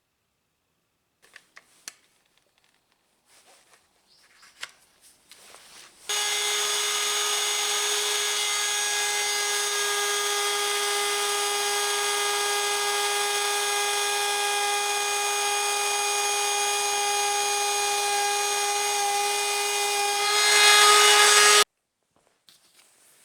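Light handling clicks and knocks, then a trim router running at a steady high pitch, louder and brighter for about a second near the end before cutting off abruptly.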